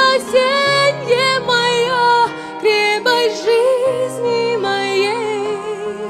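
A woman singing a slow worship song into a microphone over an instrumental backing of held chords; her long notes waver with vibrato.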